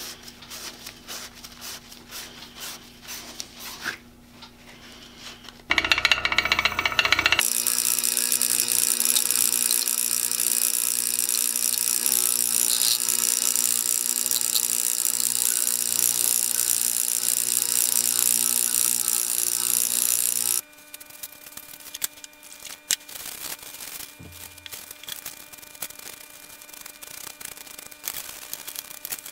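An old electric motor with a chuck on its shaft switches on about six seconds in and runs with a steady hum for about fifteen seconds while a drill chuck is held to it for polishing, then cuts off suddenly. Before and after, quiet rubbing and handling of small drill parts in a plastic tray.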